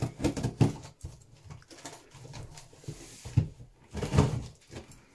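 Packing tape on a cardboard box being cut open with scissors: irregular knocks and scrapes as the box is handled, with a short hissing slit through the tape about the middle.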